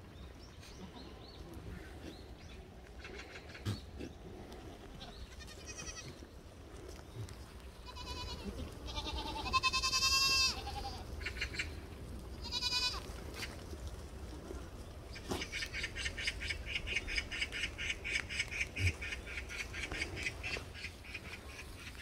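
Black goats bleating: several wavering calls, the loudest about ten seconds in. Later, a rapid, evenly pulsed high call runs for about five seconds.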